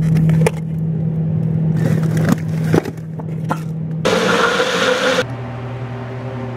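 Magic Bullet blender blending a fruit smoothie: a steady motor hum with a few sharp clicks, turning into a louder rushing whir about four seconds in, which cuts off a little after five seconds.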